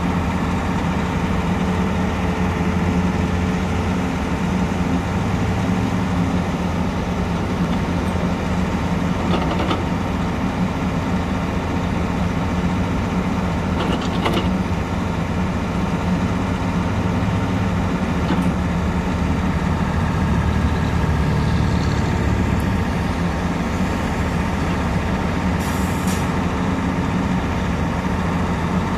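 Volvo EC380DL excavator's six-cylinder diesel engine running steadily under hydraulic load as the boom, stick and bucket are worked, with a few brief clicks and a short hiss.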